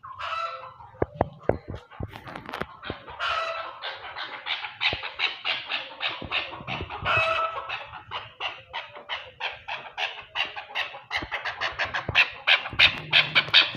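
Chukar partridge calling: a long run of rapid clucking notes that speeds up and grows louder toward the end. A few sharp knocks sound in the first couple of seconds.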